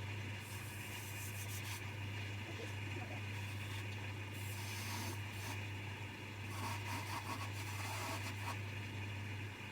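Coronet 1 wood lathe running with a steady motor hum while a turning chisel cuts the spinning wood in intermittent hissing strokes of about a second each.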